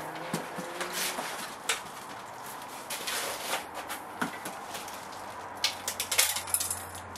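Packing materials being handled: plastic wrap and foam packing rustling and crinkling, with light knocks against cardboard, as parts are pulled out of a long shipping box. A few sharper clicks near the end.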